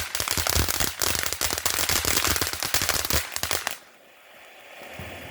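A long-running firework going off as a rapid, dense stream of sharp crackling bangs, like machine-gun fire, that cuts off suddenly about four seconds in.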